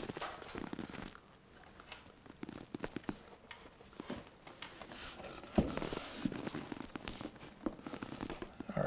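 Quiet handling noises as flexible crown moulding is pressed by hand into adhesive along the wall and ceiling: light rustles, taps and small knocks, with one sharp knock about five and a half seconds in.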